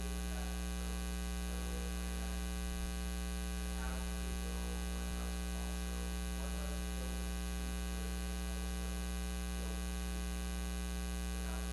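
Steady electrical mains hum with a stack of overtones, unchanging throughout. A faint, distant voice rises and falls beneath it a few times.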